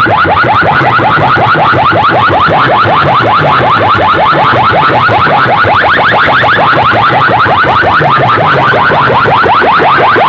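Competition DJ sound-system speakers blasting an electronic siren-like effect: a rapid train of rising sweeps, several a second, over a repeating low bass pattern, very loud and steady.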